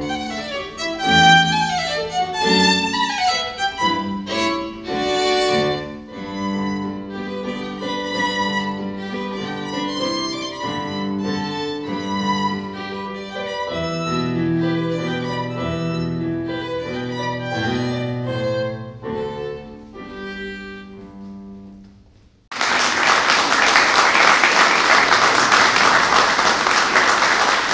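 Violin with keyboard accompaniment playing a slow piece of sustained notes, which dies away about 22 seconds in. Then an audience breaks into applause, starting suddenly and continuing steadily.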